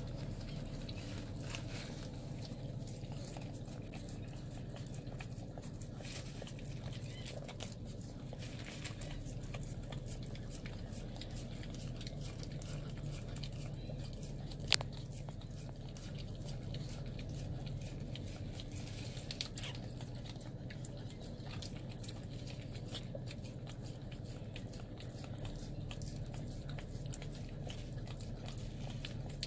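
A pug licking and mouthing a frozen yogurt tube: a run of small lapping and smacking clicks throughout, with one sharper click about halfway, over a steady low hum.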